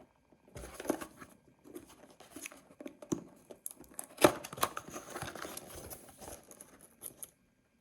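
Packaging of a newly bought alarm clock being opened by hand: irregular crinkling, rustling and tearing, with one sharp snap about four seconds in, going quiet near the end.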